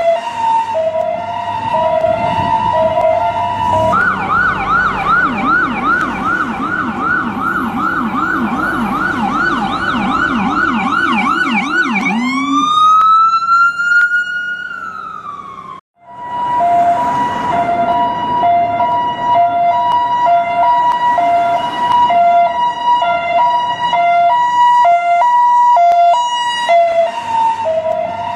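US ambulance electronic siren cycling through its modes. It opens with a two-note hi-lo alternation, switches about four seconds in to a fast yelp of about three rising-and-falling sweeps a second, then sounds one long rise that slowly falls away and cuts off. The two-note hi-lo pattern then returns.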